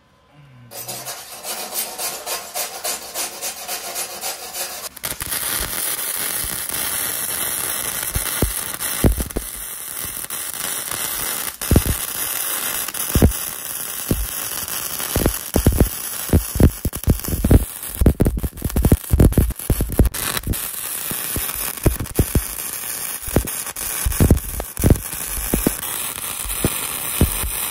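Electric welding arc laying a bead on a steel truck bumper. It strikes about a second in, sputters unevenly for a few seconds, then settles into a steady crackling hiss broken by frequent sharp pops, with weld spatter flying.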